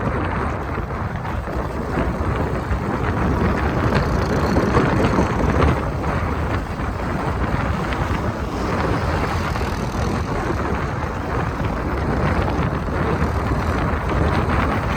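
Wind buffeting a phone microphone on an exposed mountain pass, a dense rushing noise that gusts louder about four to six seconds in.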